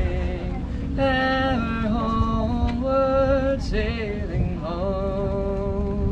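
Voices singing a song in long held notes that slide between pitches, over a steady low rumble.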